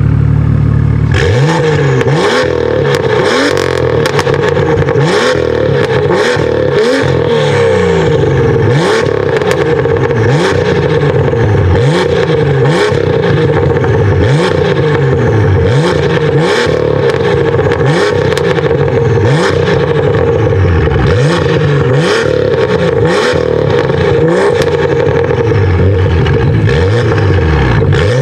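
BMW M2's turbocharged straight-six revved repeatedly while standing still: from about a second in, quick blips of the throttle rise and fall roughly once a second, with sharp pops and cracks from the quad exhaust as each blip falls away.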